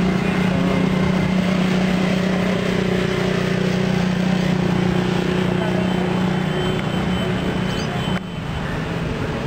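Street noise with a steady, droning engine hum from traffic, which cuts off abruptly about eight seconds in.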